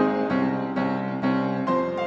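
Background piano music: a calm melody with notes struck about twice a second.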